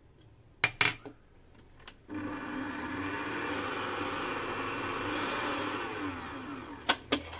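Stand mixer with a balloon whisk beating cake batter, freshly added lemon zest going in: the motor starts about two seconds in, runs steadily with a low hum, and winds down near the end. A few sharp clicks come before it starts and after it stops.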